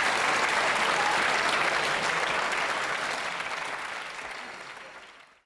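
Live audience applauding, the applause fading out over the last two seconds to silence.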